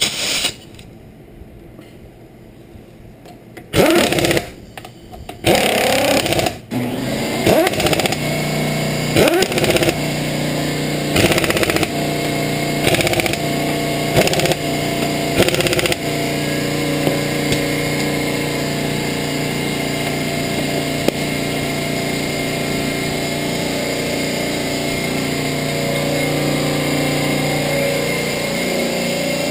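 Impact wrench run in a series of short bursts, about six, tightening a car wheel's lug nuts. A steady machine hum runs underneath and carries on alone for the second half.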